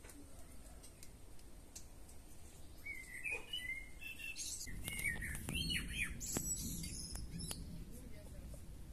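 Songbirds chirping and calling in quick short phrases, busiest from about three seconds in until near the end, over a low rumble that comes in partway through.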